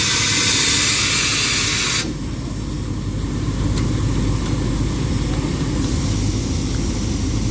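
Standing steam locomotive giving off a loud hiss that stops abruptly about two seconds in, with a steady low rumble of the idling engine going on underneath.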